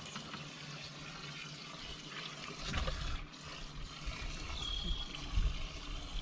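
Water trickling and dribbling steadily, with a couple of low bumps and a brief high tone about five seconds in.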